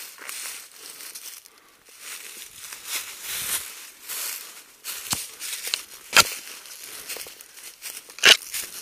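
Footsteps crunching through dry leaf litter while brushing through undergrowth, with several sharp snaps like twigs breaking, the loudest two in the second half.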